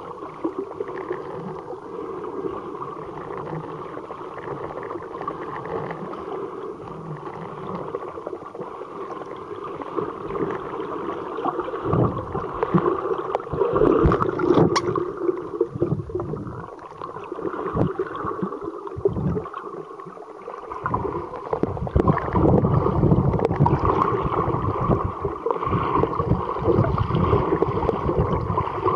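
Muffled underwater water noise picked up by a submerged camera: a steady wash with gurgling. From about twelve seconds in, irregular low thumps and surges of water movement come and go, making it louder.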